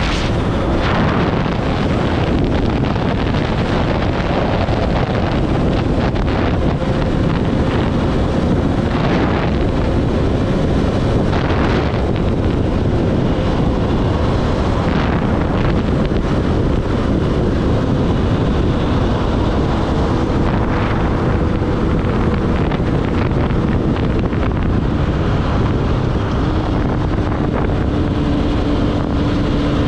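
Heavy wind noise buffeting the microphone while riding, over the Yamaha Raptor quad's 1000 cc Yamaha R1 inline-four engine running steadily underneath; the engine note drops in pitch near the end.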